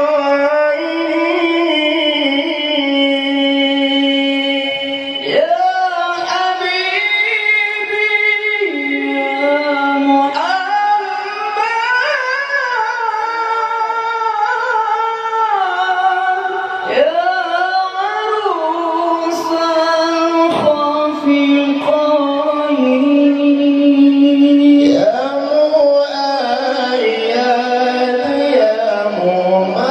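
Two men singing sholawat (Islamic praise songs for the Prophet) as a duet into microphones, in a high register with long held notes, wavering ornaments and sliding phrase entries, a new phrase beginning every few seconds.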